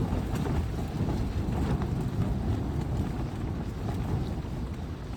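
Strong wind buffeting the microphone: a steady low rumble with faint scattered ticks.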